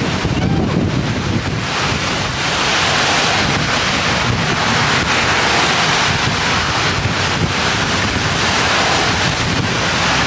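Strong wind buffeting the microphone in pouring rain: a loud, steady rush that grows a little about two seconds in.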